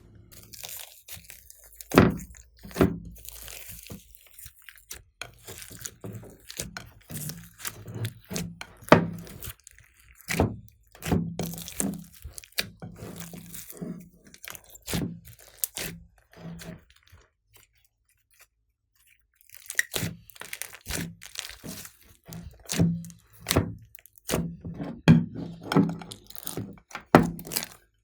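Glossy slime being squished, pressed and folded by hand, giving off irregular sticky clicks, pops and crackles several times a second. There is a pause of about two seconds a bit past the middle, then the squishing picks up again.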